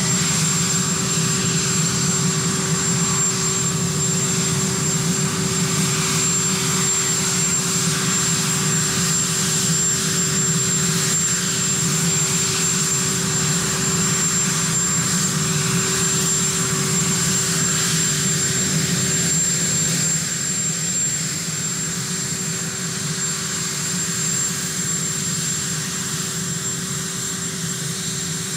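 Marine One, a Sikorsky VH-3D Sea King helicopter, running on the ground with its twin turbine engines: a steady high turbine whine over a continuous engine and rotor rumble, a little quieter from about two-thirds of the way through.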